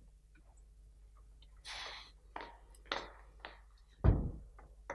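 A door and movement at it: a brief swish about two seconds in, a few sharp knocking taps, then a loud low thump just after four seconds in.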